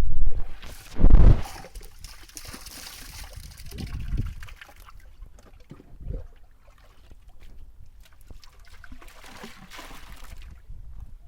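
Water trickling and splashing in two spells, the first longer, with a loud low rumble in the first second and a half.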